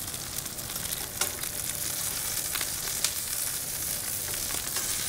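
Halved mushrooms sizzling in hot oil in a stainless steel skillet over a high gas flame. Metal tongs click against the pan a few times as the mushrooms are turned.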